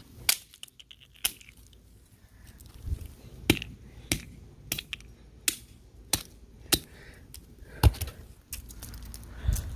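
A hand-held rock slammed again and again onto a small object on a concrete sidewalk, making about ten sharp knocks. A couple come early, then a steady run of blows a little under one a second, with the hardest near the end.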